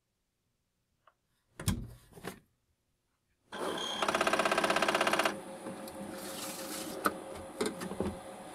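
Commodore CBM 4040 dual floppy disk drive powering back up after being switched off: after a couple of light knocks its mechanism starts with a loud, fast, even rattle for about a second and a half, then settles into a steady running hum. A few clicks come near the end as a disk is pushed into the right-hand drive.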